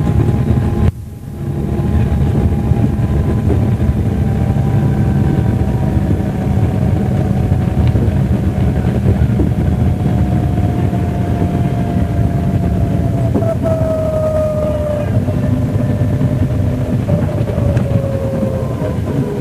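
MCW Metrobus's Cummins diesel engine and driveline running under way, heard on board. The sound drops abruptly about a second in and builds back up. A whine slowly falls in pitch in the later seconds.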